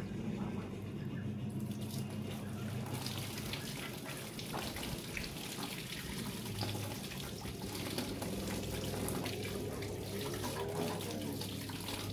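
Water running steadily, growing fuller about three seconds in, with a low steady hum underneath.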